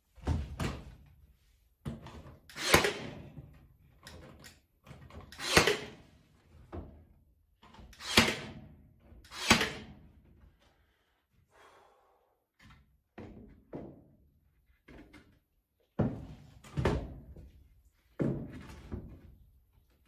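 Hollow wooden knocks and thuds as weathered timber boards are handled and set against a timber-clad wall: about a dozen separate hits, each dying away quickly, the loudest coming in the first half.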